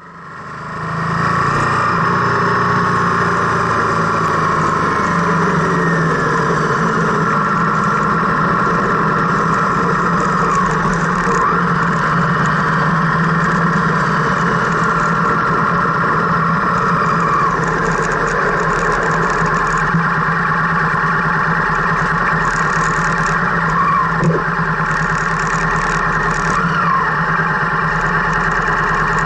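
Car engine and tyre noise heard from inside the cabin while driving, a steady drone that fades in over the first second, with the engine pitch shifting slightly now and then.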